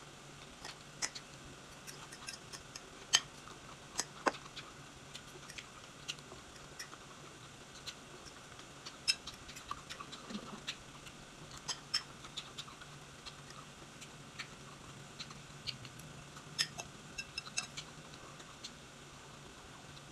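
Metal fork clinking and scraping on a ceramic plate in irregular sharp clicks, with chewing in between, over a faint steady hum.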